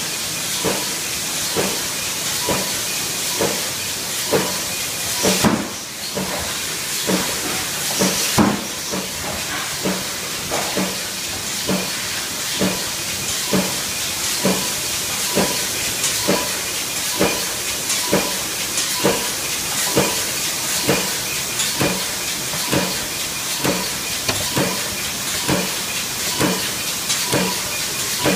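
Punch press cycling continuously, stamping parts from steel coil strip: an even knock a little over once a second, over a steady machine hiss.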